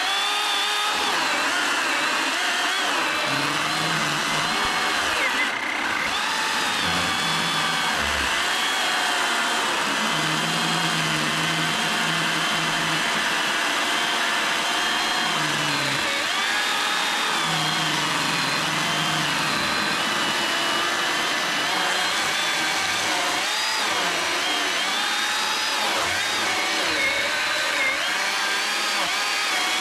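Milwaukee M18 Fuel 18-inch brushless cordless chainsaw cutting through a thick log under heavy load. The motor's whine keeps dipping and recovering in pitch as the chain is pressed into the wood.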